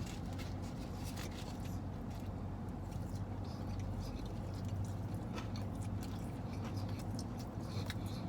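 People chewing and crunching mouthfuls of a KFC Chicken Little fried chicken sandwich, with scattered small crunchy clicks over a steady low hum.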